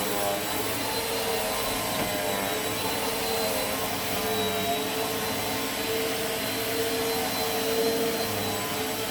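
Eureka AirSpeed Plus (NEU110) compact vacuum cleaner running steadily while cleaning carpet, its motor hum held at an even pitch with a thin high whine on top.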